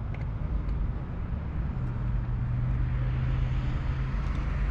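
Steady low rumble of an idling vehicle engine, with a steady engine hum that comes in about two seconds in.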